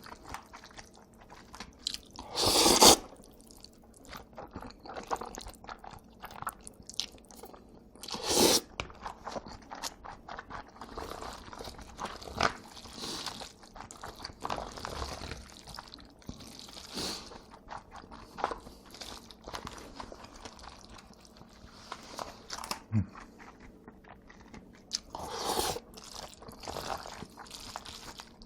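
Close-miked eating of jjajangmyeon and jjamppong noodles: chewing and biting with many small wet clicks, and three short, louder bursts about 3, 8 and 25 seconds in.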